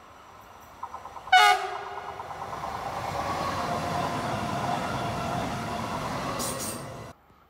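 An SBB electric passenger train sounds a brief horn blast about a second and a half in, the loudest moment. Its rolling noise on the rails then builds as it runs close past, and cuts off suddenly shortly before the end.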